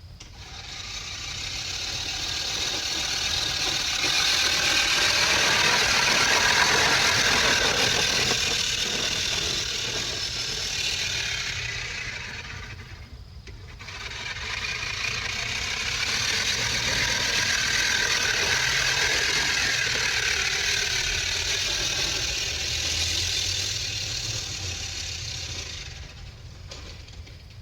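An engine-driven vehicle passing by twice, each pass swelling up to a peak and then fading away over about twelve seconds, with a low steady hum from the record underneath.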